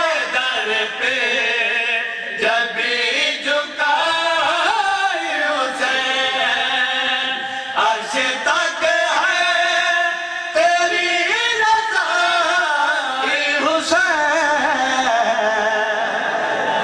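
A man's voice chanting verses of a qasida, unaccompanied, in long, wavering melodic lines with short breaks between phrases.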